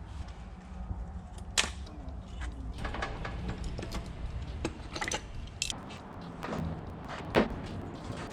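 Metal hand tools, Allen key sets among them, being handled and sorted through: a run of irregular sharp clicks and clinks, with a louder knock about one and a half seconds in and another near the end.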